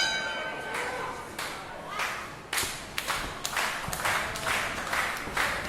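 A run of sharp claps, several a second, from a small crowd, with voices beneath.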